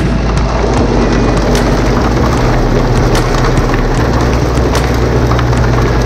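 Chain-and-slat feed conveyor running, with feed pouring onto it from a chute overhead: a loud, steady mechanical rattle of chain and slats with a low motor hum underneath.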